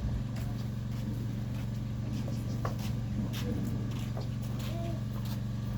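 A steady low hum with scattered short clicks and taps, and a few brief chirps over it.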